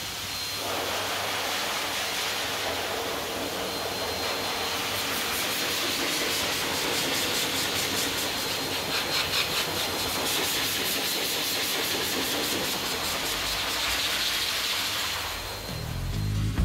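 High-velocity stand dog dryer blowing a steady rush of air through its hose nozzle onto a wet Maltese's coat, with a faint steady whine.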